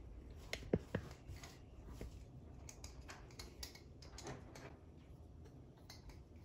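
Faint handling of small metal faucet parts: a few light clicks between half a second and a second in, then soft ticking and scraping as a screw is driven into the Moen Eva handle adapter with a screwdriver.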